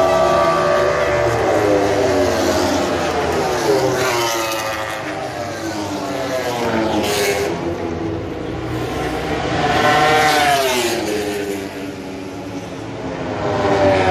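Grand Prix racing motorcycles passing one after another at speed. Each bike's engine note climbs as it approaches and drops as it goes by, about four times in all.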